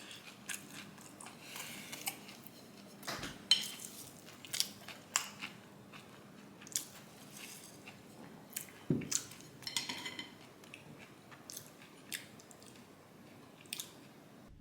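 Faint, scattered crunches and light clicks of the finished pan-fried leek pancake being eaten, with cutlery tapping a dish.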